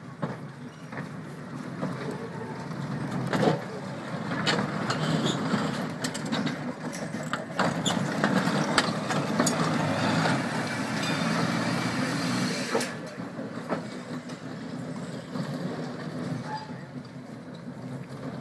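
Vintage electric tram running past close by: steel wheels rumbling on the rails, with scattered clanks and clicks. It grows louder to a peak from about eight to thirteen seconds in, then fades as it moves away.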